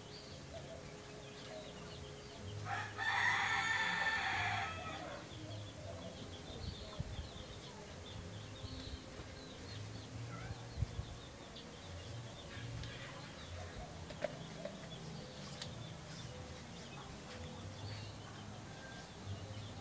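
A rooster crows once, about three seconds in, for roughly two seconds, over a faint low hum.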